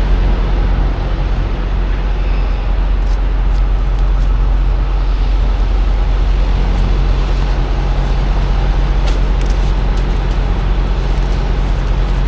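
Diesel engine running steadily at idle, a low, even hum with a few faint clicks above it.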